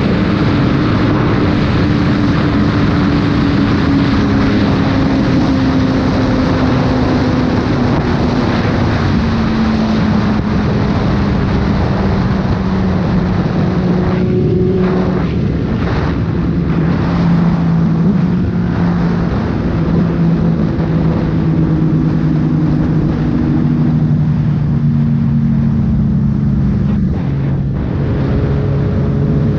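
Heavy wind rush on the microphone over a sport motorcycle's engine running at road speed. The engine note drifts slowly lower through the stretch, and the wind noise dips briefly a few times about halfway through.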